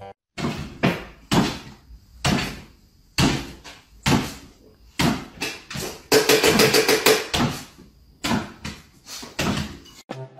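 A string of dull thuds, roughly one every half second to a second: a dog's feet landing on a wooden floor as it bounces up and down, excited at its food bowl being filled. About six seconds in comes a quicker rattling burst.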